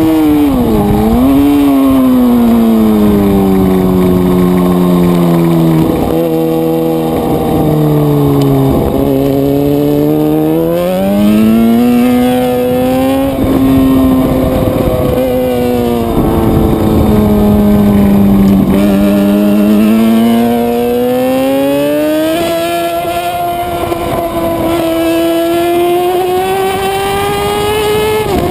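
Suzuki GSX-R600 sport bike engine at track speed, its pitch falling as the bike slows and rising again as it accelerates, several times over. There are a few short breaks in the pitch where gears change.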